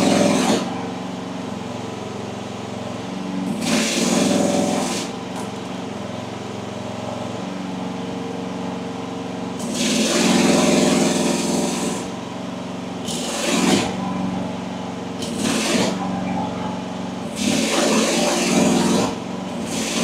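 AGT WH12R mini excavator engine running steadily while the joystick controls are worked, the hydraulics loading up in about five surges of one to two seconds each, during a function and leak test after swapping the control pattern from ISO to ASE.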